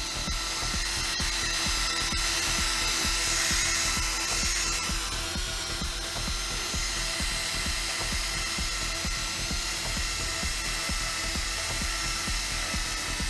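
Small cordless rotary polisher with a foam pad running steadily against a black car tail light lens, a constant motor whine as the lens is buffed, under background music.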